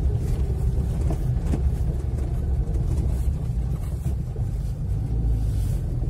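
Moving car, heard from inside: a steady low rumble of engine and tyres on a rough, patched asphalt road, with a couple of light knocks about a second in.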